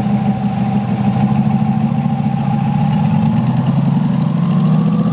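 Twin-turbo C8 Corvette's 6.2-litre V8 running at low revs as the car rolls slowly along, a steady engine note that rises slightly in pitch over the last couple of seconds.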